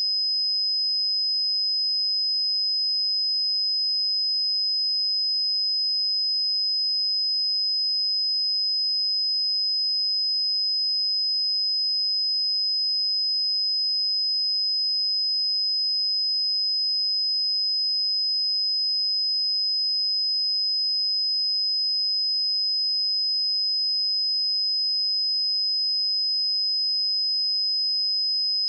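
A pure 5051 Hz sine-wave test tone, a single steady high-pitched tone held at constant level throughout.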